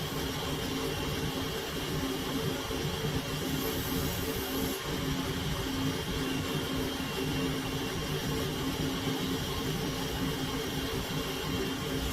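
Steady hum of running electric machinery, with a few held tones and an even rushing noise that does not change.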